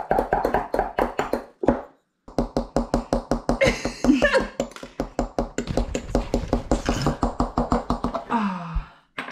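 Small wooden mallet tapping a plastic chisel into a plaster dig-kit block: rapid, evenly spaced taps, several a second, with a short pause about two seconds in.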